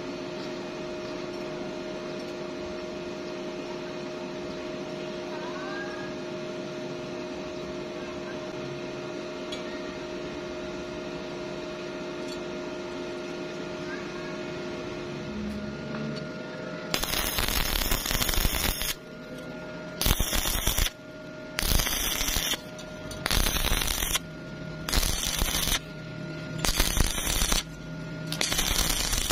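Steady hum for the first half. Then an E6013 stick-welding arc crackles in repeated bursts, struck and broken in a start-stop rhythm about once every second and a half as a fillet weld is laid on a steel T-joint.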